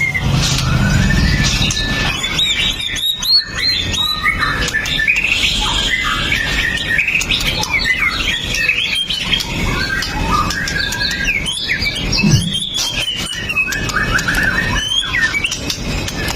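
White-rumped shama singing a continuous run of fast, varied whistled phrases with quick rising and falling notes and sharp chips.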